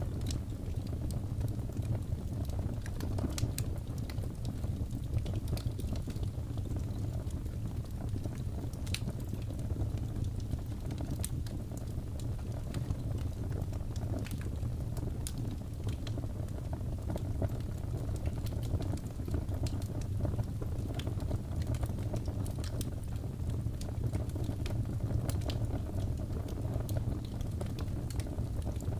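Wood fire burning steadily, a low continuous rumble with frequent sharp crackles and pops at irregular moments.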